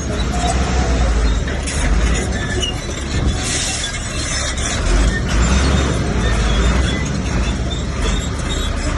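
Komatsu bulldozer at work: its diesel engine runs with a heavy low drone under a steady mechanical din.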